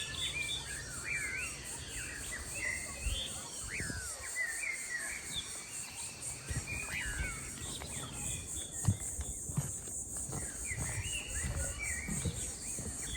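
Many birds calling and chirping in short rising and falling notes over a steady, pulsing chorus of crickets and other insects, with a few low knocks, the sharpest about nine seconds in.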